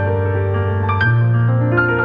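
Background piano music: held notes over a steady bass, with a new chord coming in about a second in.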